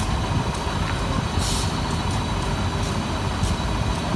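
Train running, a steady low rumble, with a brief hiss of air about a second and a half in.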